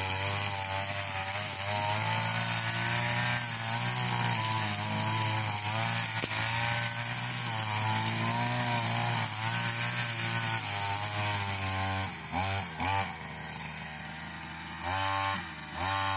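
String trimmer cutting grass with its motor running at a steady high speed, then easing off to idle about twelve seconds in, with a few short revs before the end.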